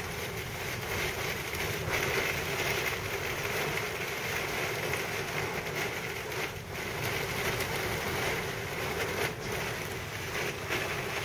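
Thunderstorm downburst wind blowing hard and steadily, with brief dips about six and a half and nine seconds in.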